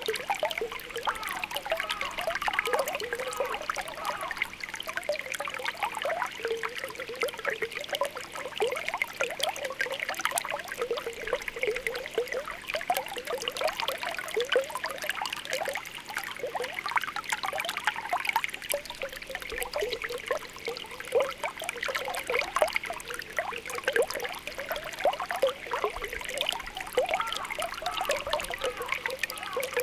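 Spring water welling up from the ground with a steady bubbling and popping: many small bubbles burst in quick, uneven succession over a gentle trickling flow.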